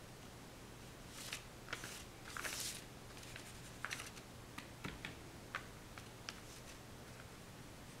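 Paintbrush working on paper: a few short scratchy swishes, then scattered light taps and clicks.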